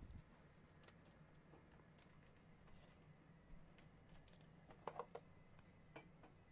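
Near silence with faint clicks and rustles of trading cards and a clear plastic card sleeve being handled as a card is slid into it; a few sharper clicks come together about five seconds in.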